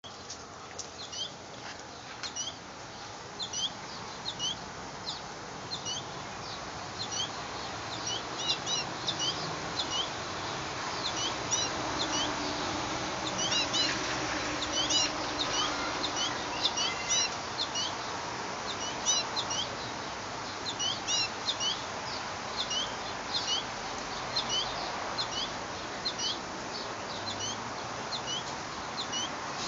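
Small songbirds chirping: short, high chirps in quick clusters, going on almost without a break.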